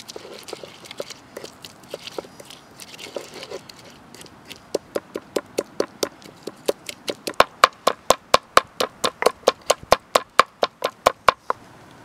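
Wooden pestle in a wooden mortar: a few seconds of irregular crushing and grinding, then steady pounding at about four strokes a second that grows louder in the second half and stops shortly before the end.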